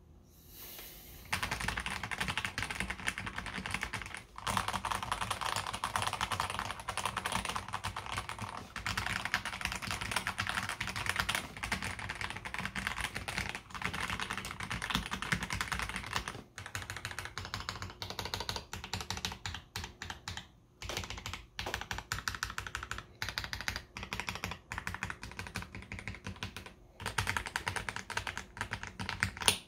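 Fast, continuous typing on a KBD67 Lite R3 mechanical keyboard fitted with hand-lubed AKKO CS Jelly Black heavy linear switches. The rapid keystroke clacks start about a second in and pause briefly a few times.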